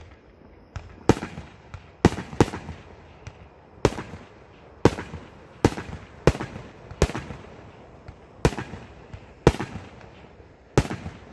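Aerial fireworks bursting overhead one after another: about a dozen sharp bangs at uneven gaps of a second or so, each trailing off in a short echo.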